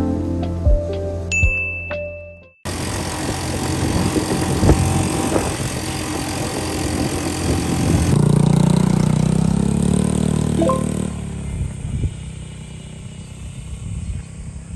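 Background music, with a sudden cut to near silence about two and a half seconds in. After the cut, a steady noisy ambience plays under the music, louder in the middle and easing off near the end.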